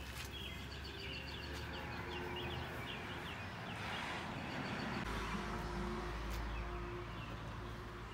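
Small birds chirping in quick series of short notes, mostly in the first few seconds, over a steady low outdoor rumble that grows heavier about five seconds in.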